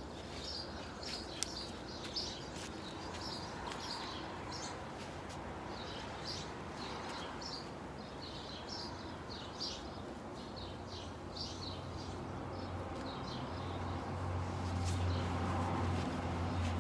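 Small birds chirping over and over in quick, high notes, with a low steady rumble coming in about two-thirds of the way through.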